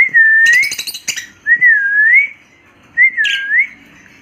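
A pet parrot whistling three times, each a clear whistle that dips and then rises, with short raspy squawks over the first and the last whistle.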